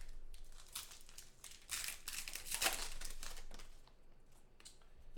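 Crinkling and rustling of plastic packaging as trading cards are handled, in two spells, the louder one from about two to three and a half seconds in.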